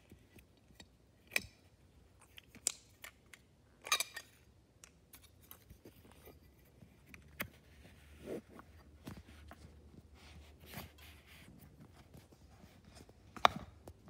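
Quaker parrot bathing in a shallow glass bowl of water: scattered small splashes and clicks, with a short flurry about four seconds in and a sharp knock near the end.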